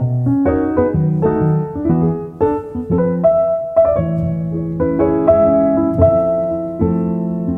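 Background music: a piano-like keyboard playing a melody of short notes over held low notes.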